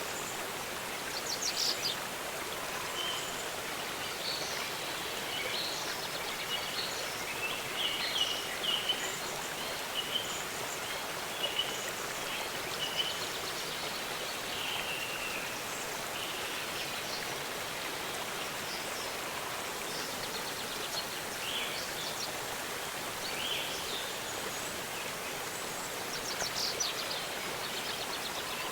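Steady rush of a waterfall with birds chirping and trilling over it; the calls are busiest in the first half and come again near the end.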